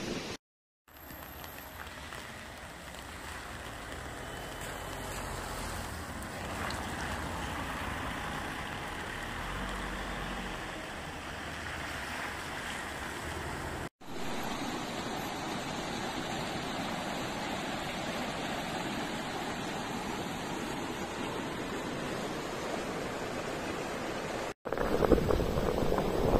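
Floodwater rushing, a steady noisy roar with wind buffeting the microphone. The sound breaks off briefly at the cuts between clips and is louder in the last couple of seconds, over a flooded street.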